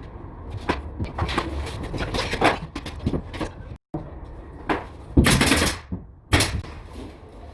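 Irregular knocks and scraping of carpentry work on a building site, with two louder rushing bursts of noise in the second half.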